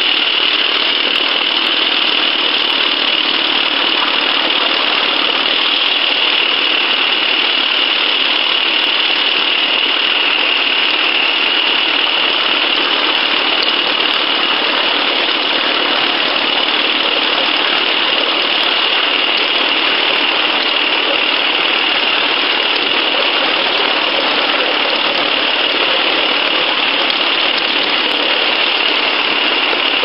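Miniature steam locomotive running along the track, picked up by a camera mounted on the engine: a steady, loud rushing noise with no distinct exhaust beats.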